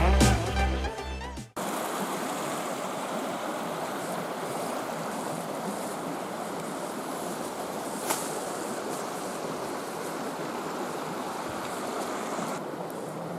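Background music cuts off about a second and a half in, then the steady rush of a river flowing, with one faint click partway through.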